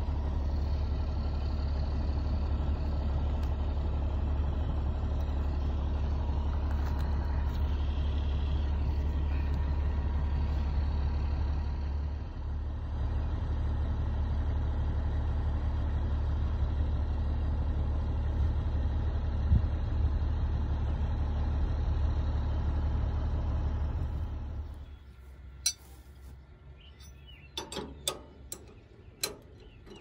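Steady low rumble of an idling engine, which cuts off about twenty-five seconds in. A few sharp metallic clicks from a wrench on the header's cutter-bar drive follow near the end.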